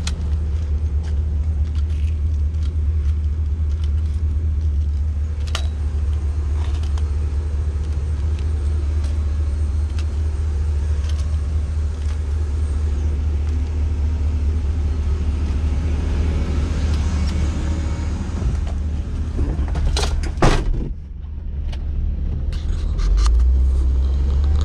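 Nitehawk street sweeper truck's engine running steadily with a deep low drone and scattered light clicks and knocks. About twenty seconds in come two loud knocks, then the sound turns muffled and the engine is heard from inside the cab.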